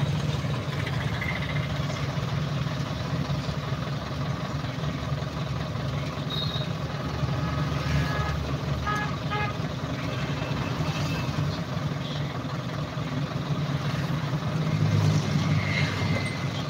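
Steady engine and road rumble of a vehicle moving through city traffic, heard from inside it, with a few short horn toots about eight to nine seconds in.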